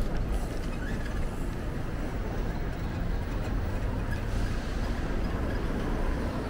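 Steady low rumble of road traffic with wind noise on the microphone.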